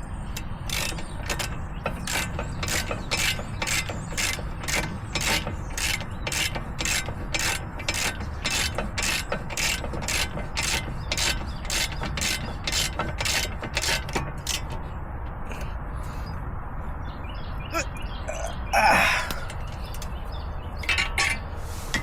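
Hand socket ratchet clicking in a steady rhythm, about two to three clicks a second, as brake caliper bolts are run in. The clicking stops about fourteen seconds in, and a short, louder sound follows near the end.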